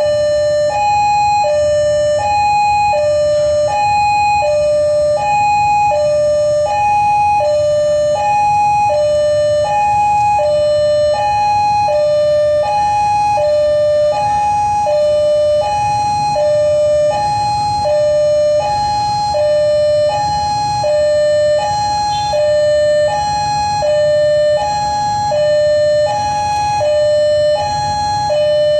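Railway level-crossing warning alarm sounding an electronic two-tone chime, high and low notes alternating evenly, each a bit under a second, over and over: the crossing is closed for an approaching train. A low steady hum of waiting traffic lies beneath.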